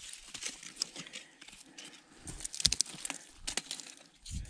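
Dry pine wood crackling and snapping in irregular sharp cracks, with a cluster of louder ones about two and a half seconds in, as pieces of resinous pine are broken off an old stump.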